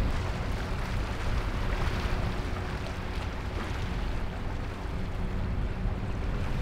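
Outboard motor running steadily as a boat passes at speed, with rushing water from the hull and a steady hum from the engine.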